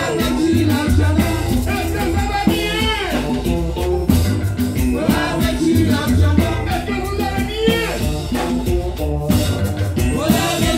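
Martinican Christmas carol music (chanté Nwel): sung voices over a steady beat with bass and rhythmic shaker percussion.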